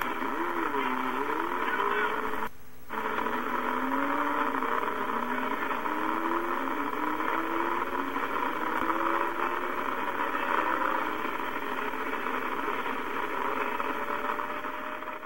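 Radio static: steady hiss in a narrow, telephone-like band, with faint wavering whistles gliding up and down beneath it. It drops out for a moment about two and a half seconds in, and fades out at the end.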